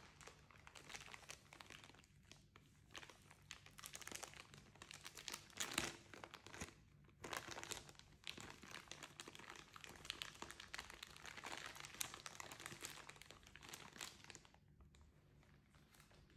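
Packaging crinkling and rustling as it is handled during an unboxing: faint, irregular crackles with a few sharper clicks, stopping a couple of seconds before the end.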